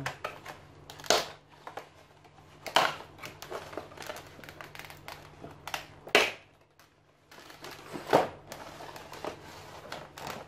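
Clear plastic blister packaging crackling and crinkling in sharp bursts every second or two as it is handled to be opened.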